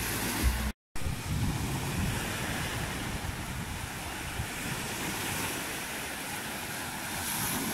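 Small waves breaking and washing up a sandy beach: a steady wash of surf, with wind buffeting the microphone near the start. The sound cuts out completely for a moment a little under a second in.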